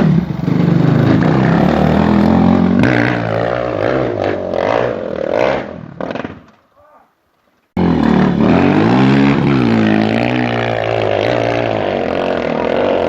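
Off-road motorcycle engine revving hard under load as a dirt bike climbs a steep gravel bank, the revs rising and falling. The sound cuts out abruptly a little past halfway, then the engine is back just as loud, revving up and down.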